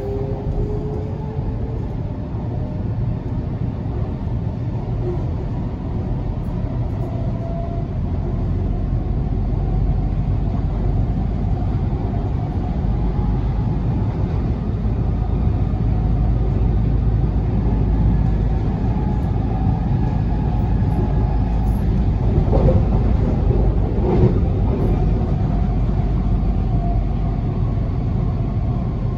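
Canada Line SkyTrain car running at speed, heard from inside the car: a steady rumble of wheels on rail, growing a little louder about ten seconds in, with a faint rising whine at the very start.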